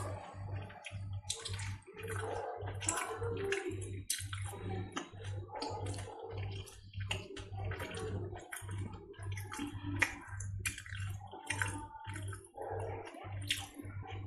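Syrup-soaked jalebi being pulled apart and broken by hand: wet, sticky crackling and squishing as the coils tear.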